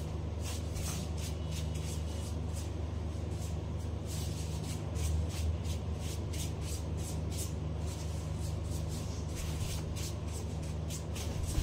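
Electric hair clipper running with a steady low buzz, with many short rustling strokes as it is worked over the back of the head.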